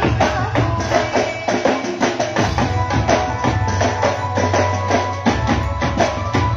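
Instrumental passage of a devotional bhajan: a fast, steady percussion beat with jingling tambourine-like strokes over a bass line and a held melody.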